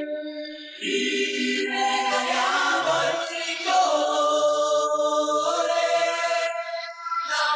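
Wordless choral singing over a song's backing music, with long held notes. It dips briefly about half a second in and again near the end.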